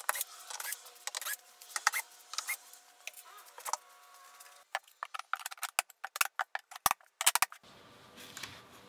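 Knocks, clicks and clacks of a vise, plywood panels and wooden boards being handled on a workbench. The taps are scattered at first, then come in a quick irregular run about five seconds in.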